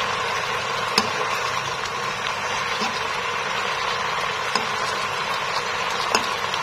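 Chicken legs simmering in a bubbling sauce in a nonstick frying pan: a steady sizzling hiss with a few light clicks.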